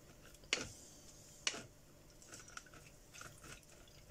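Wooden spoon pressing and scraping wet, steeped poppy petals against a plastic-framed mesh sieve, with soft wet squishing. Two sharper scrapes stand out, about half a second and a second and a half in.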